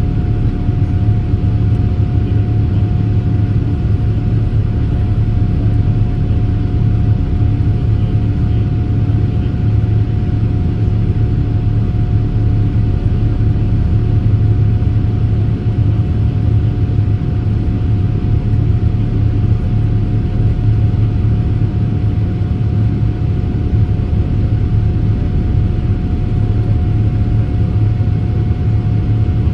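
Cabin noise inside a Boeing 787-8 Dreamliner climbing after takeoff: a steady low rumble of engines and rushing air, with one constant tone running through it.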